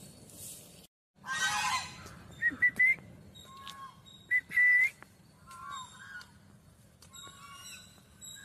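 White domestic geese calling: a loud honk just after a second in, followed by a string of short, high whistle-like calls and lower honks.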